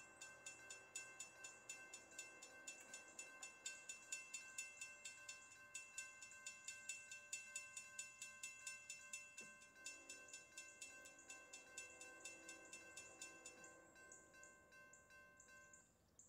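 Railroad grade-crossing warning bell ringing in rapid, even strokes while the crossing is activated. Near the end the ringing tone cuts off.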